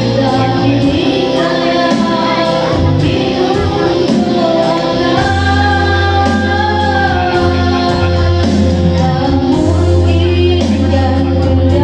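Music with a singing voice over steady bass and sustained accompaniment.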